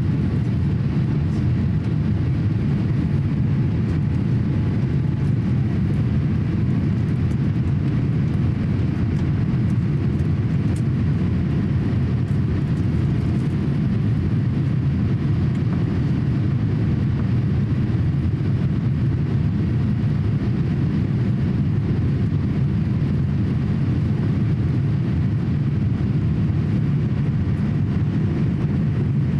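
Steady cabin noise inside a Boeing 787-8 climbing after takeoff: an even, deep rumble of the jet engines and rushing air that holds unchanged throughout.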